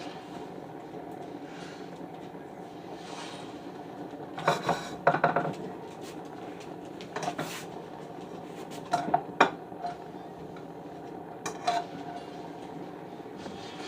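Cookware clinks: a metal pan and utensils knocking and scraping in a cluster about four to five seconds in, then a few more single clinks, over a steady low hum.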